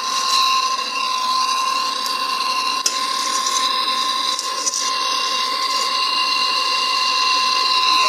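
Hand-held gas torch on a yellow MAP-type fuel cylinder burning with a steady hiss and a high whistling tone, heating the copper suction-pipe joint at a fridge compressor to desolder it.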